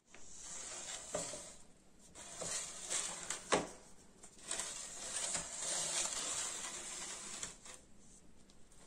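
A serving tray of doughnuts handled on a countertop: rustling and scraping as it is slid and adjusted, with several light knocks, the sharpest about three and a half seconds in. The sound dies down near the end.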